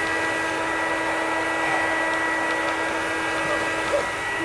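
Hair dryer running steadily: a constant rush of air with a steady motor whine.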